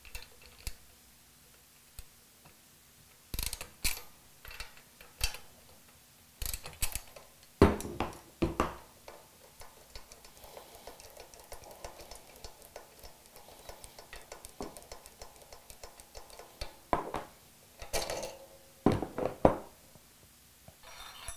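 Hand tools and steel engine parts clicking and clanking while the rocker arm shaft is unbolted and lifted off an AeroVee engine's cylinder head: scattered sharp metal knocks and clinks, with a stretch of quick ratchet-like ticking in the middle. The loudest knocks come in clusters about a third of the way in and again near the end.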